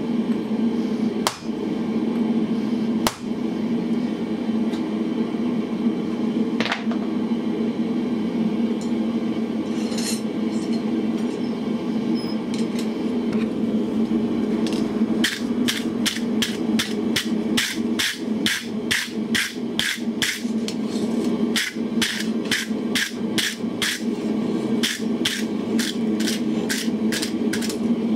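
Blacksmith's hammer striking on the anvil: a few single blows in the first seconds, then from about halfway a quick, even run of about three blows a second with a short break, over a steady low hum.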